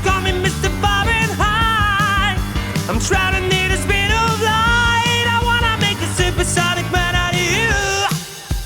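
Rock band music with a lead melody of long, gliding held notes over drums and bass; it stops near the end and a different beat starts.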